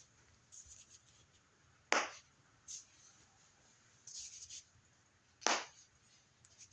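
A person cracking their joints: two sharp pops about three and a half seconds apart, a fainter click just after the first, and soft rustling in between.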